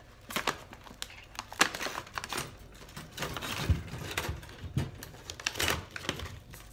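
Paper packaging label crinkling and rustling as it is handled and pulled off a wire suet-feeder cage, with scattered sharp clicks and a few low knocks.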